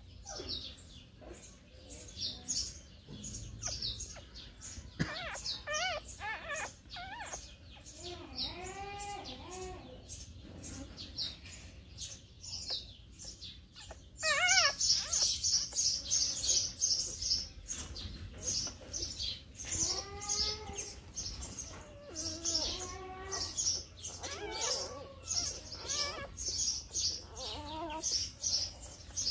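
Newborn puppies squeaking and whining in short, arched cries while they nurse, over a constant chatter of bird chirps that gets much louder about halfway through.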